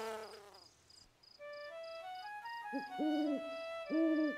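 An owl hooting twice, about a second apart, near the end, over a steady chirping of crickets at about four chirps a second. Soft music notes climb in pitch step by step beneath them: night-time noises in a cartoon soundtrack.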